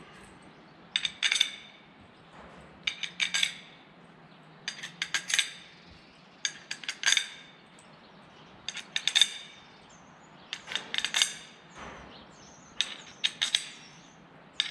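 Steel bolts clinking against one another and against a metal propeller hub as they are picked one at a time from a pile and fed through the hub's bolt holes. Each bolt gives a short cluster of metallic clicks, about one every two seconds.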